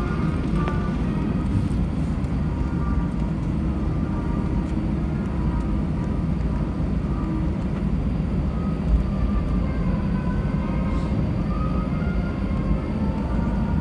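Airliner cabin noise while taxiing: the steady low rumble of the jet engines at idle and the wheels rolling on the taxiway.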